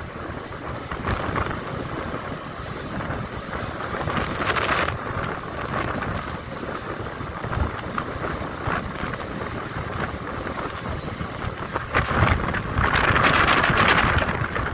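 Wind rushing over the microphone and the motorcycle's running noise while riding down a road, growing louder for a couple of seconds near the end.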